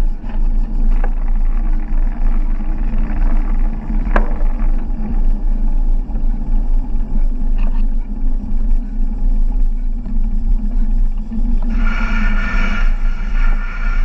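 Background music over a steady low rumble.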